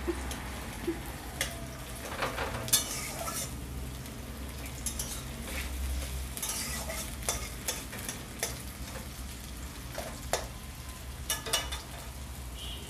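Sliced onions sizzling as they fry in hot oil in a metal kadai. A metal spatula scrapes and clinks irregularly against the pan as the onions are stirred.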